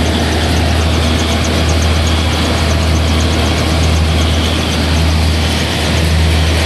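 Small family rice milling machine running steadily, milled rice pouring down its chute: a loud, even low hum under a rushing hiss, with a fast light ticking on top.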